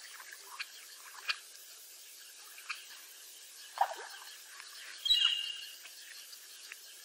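Water dripping and plopping in small scattered drops as a bufflehead duck dives, the strongest plop about four seconds in. A short, high-pitched bird chirp comes about five seconds in.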